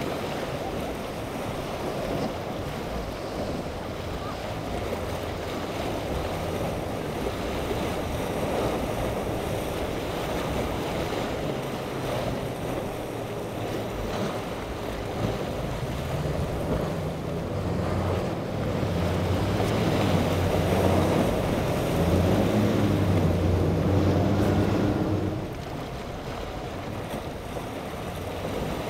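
Outboard motors of passing center-console boats running through choppy water, with waves and wind noise on the microphone. The engine drone wavers in pitch and is loudest in the second half, then drops away abruptly near the end.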